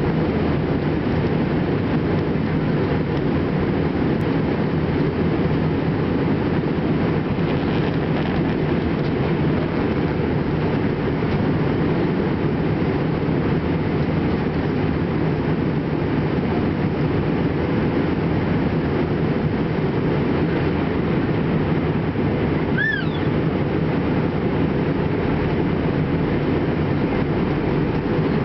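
Steady cabin noise of a jet airliner in flight, heard from a window seat: the engines and rushing airflow make a low, even rumble. A single brief high chirp sounds about three-quarters of the way through.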